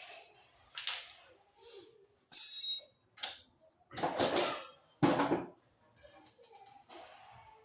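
A series of separate knocks and clanks of handled metal tools or parts, one with a high ringing tone about two and a half seconds in and the loudest knock about five seconds in.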